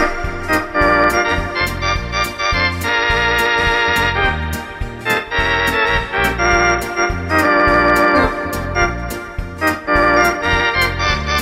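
Two-manual electronic home organ playing a tune in sustained chords over a walking bass line, with a steady built-in percussion beat ticking about two to three times a second.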